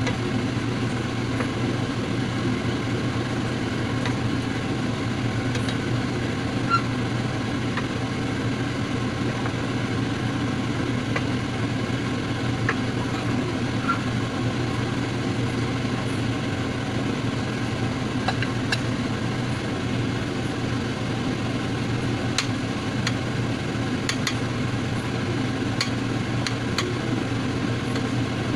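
A steady low hum throughout, with scattered light clicks and taps of a wooden spatula and a metal spoon against a stainless steel pot as chicken adobo is stirred. The taps come more often in the second half.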